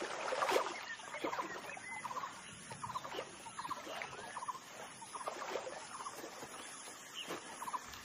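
A busy chorus of short animal calls: quick clucking pulse-groups and brief chirps, several every second.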